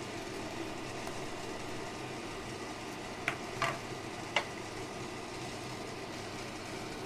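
Three light clinks a little past the middle, a spoon against a glass bowl while ingredients are mixed, over a steady background hum.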